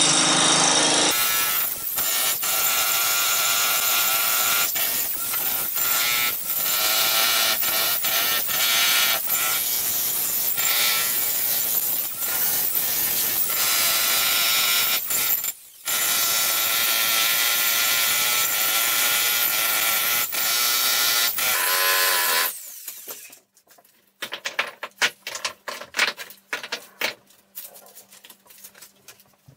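Electric jackhammer breaking up a concrete floor slab, hammering continuously with one brief pause about halfway and stopping a few seconds before the end. After it stops, broken chunks of concrete clatter as they are picked up.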